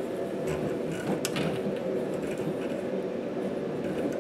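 A steady low mechanical hum, with one sharp click a little over a second in.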